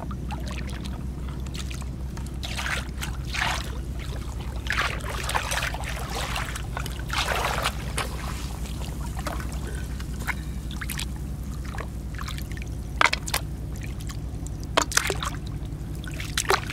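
Shallow seawater splashing and trickling in irregular spurts as hands and rubber boots move through it, over a steady low rumble. A few sharper splashes come near the end.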